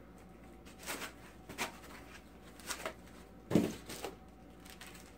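Packaging being handled during unboxing: about six short rustles and knocks of plastic and box packing, the loudest a thump about three and a half seconds in.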